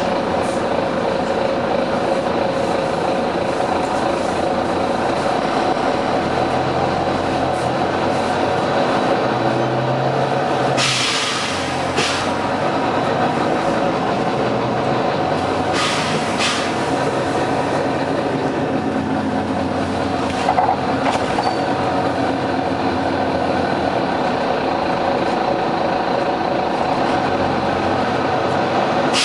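Volvo B9TL bus's six-cylinder diesel engine running steadily, with a sharp hiss of compressed air about eleven seconds in and shorter air hisses about a second and five seconds later.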